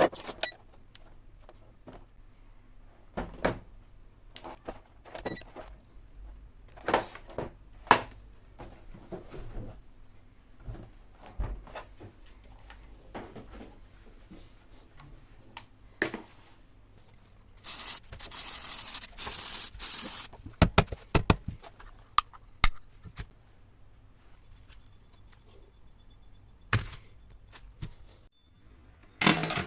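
Hand-work on a bench: scattered knocks, clicks and rubbing as tools and parts are handled, with a harsh scraping noise lasting about three seconds in the middle.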